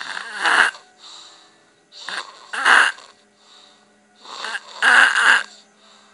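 A boy snoring loudly: three heavy snores about two seconds apart, with softer breaths in between.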